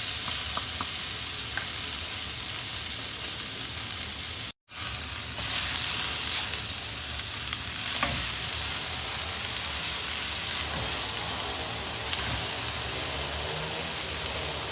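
Ingredients for pancit bihon sizzling steadily in a hot pan while being stirred, with a few light clicks of the utensil. The sound cuts out completely for a moment about four and a half seconds in, then the sizzling resumes.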